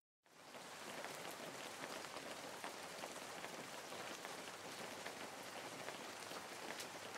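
Steady rain falling, heard faintly as an even hiss of many small drops; it cuts in abruptly just after the start.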